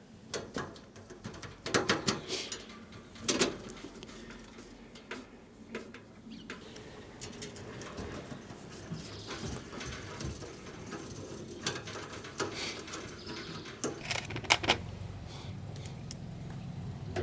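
Model railway bridge truss parts being handled and fitted together by hand: scattered clicks and knocks, with light scraping and rustling between them. The loudest knocks come about two seconds in, about three and a half seconds in, and again near the end.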